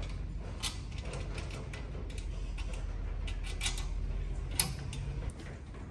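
Scattered light clicks and taps of a drain channel and its bolt being handled and offered up against the hoop of a soft-top bar set, over a steady low hum.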